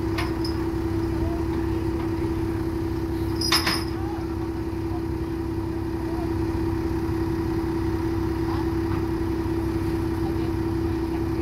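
Wheel loader's engine idling steadily, with a single sharp clank about three and a half seconds in.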